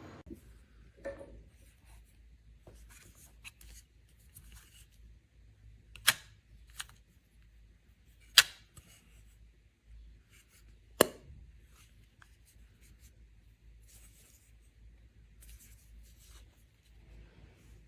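Scattered handling noise: soft rustling and small knocks, with several sharp clicks standing out, the loudest about six, eight and eleven seconds in.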